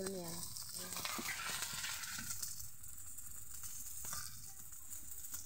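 Okra fritters sizzling in a little oil in a black iron karahi, with a metal spatula working them in the pan.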